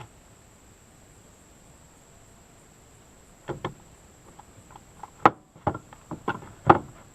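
Wooden 2x4 boards knocking and clacking as they are lifted off a stack and handled. The knocks are short and sharp, in a string that starts about three and a half seconds in, with the loudest near the end.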